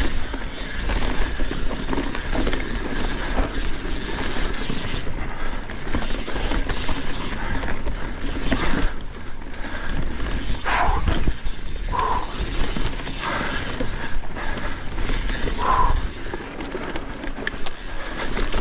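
Mountain bike riding fast down a dirt singletrack: tyres rumbling over the ground and the bike's chain and frame rattling and clicking over bumps, with wind on the microphone. A few short squeaks come in the later part.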